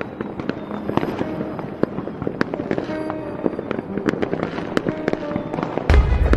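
Fireworks sound effect: a steady scatter of sharp pops and crackles over background music, with a loud low boom near the end.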